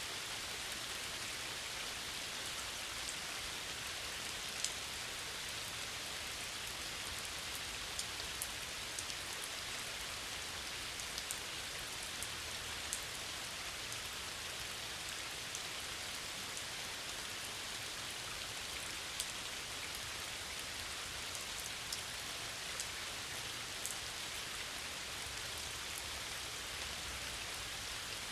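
Steady rain falling on a lake's surface: an even hiss with scattered sharp, louder drop ticks throughout.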